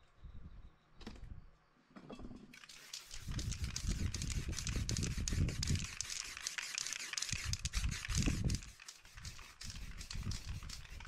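Paper stencil handled and pressed flat, then an aerosol spray can hissing in long, slightly pulsing bursts as black spray paint is laid over it, starting about two and a half seconds in.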